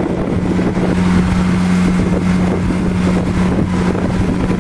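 A boat's engine running with a steady low hum, a little stronger from about a second in, under a constant rush of wind and water.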